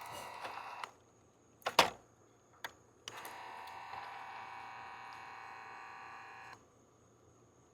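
Remote-control toy fire truck giving out a steady, buzzy electronic sound twice: briefly at the start, then for about three and a half seconds. A sharp click comes between the two.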